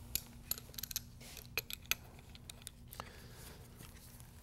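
Wrenches clicking and clinking against the brass water pressure regulator and its threaded copper fittings as the fittings are tightened: a scatter of light, sharp metal clicks in the first two seconds and one more about three seconds in.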